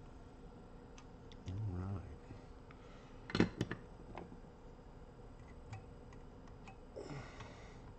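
A soldering iron is set down on the workbench: a few sharp clicks and a clatter about three and a half seconds in, then small ticks and a brief rustle as tools are handled.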